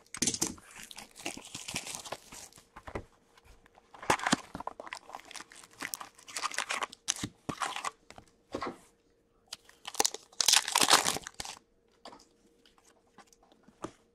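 Foil packs of hockey trading cards being torn open and their wrappers crinkled, in irregular bursts, the loudest a little after ten seconds in, with the cards handled between.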